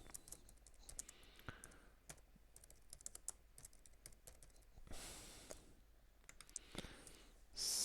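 Faint computer keyboard typing and mouse clicks, coming in quick irregular clusters, with a short soft hiss about five seconds in.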